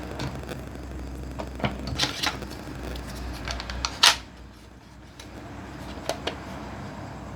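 Scattered small clicks and taps from handling objects, then one louder sharp click about four seconds in, after which the steady background hum drops away.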